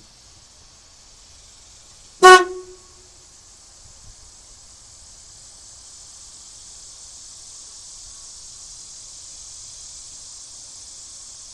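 The horn of a 1976 Chevy Blazer gives one short, loud honk about two seconds in as its wiring is jumpered for a test.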